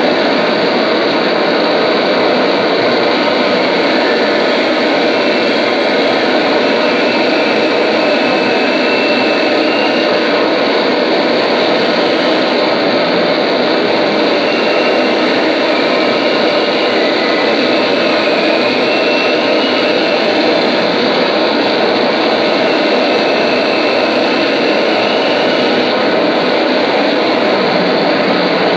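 Experimental noise performance: an electric guitar fed through effects pedals and an amplifier gives a loud, steady wall of distorted noise, with faint high tones wavering above it now and then.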